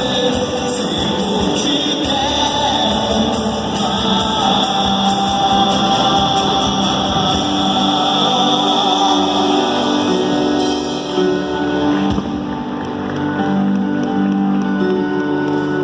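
Live band music with singing. The beat drops out about 12 seconds in, leaving held notes.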